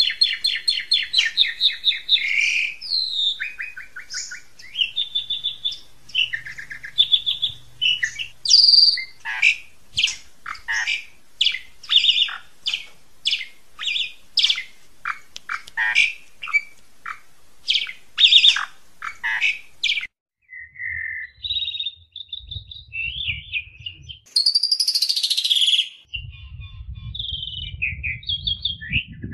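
Songbird tutor song with harsh, rapid phrasing: it opens with a fast rattling trill, moves through varied chirps and whistles, then gives a long run of sharp, loud notes about two a second, each sweeping steeply down. After a short break about two-thirds of the way in, varied chirps and warbles resume.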